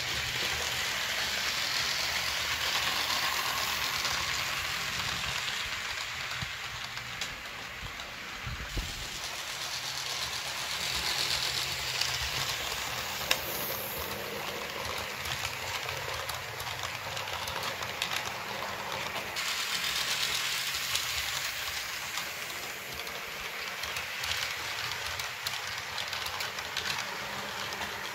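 HO-scale Jouef model train, led by a model of the 231 K 8 steam locomotive, running on the layout's track: a steady rolling whir and rail noise from the wheels and motor. It swells three times, about 3, 11 and 20 seconds in, as the train passes close.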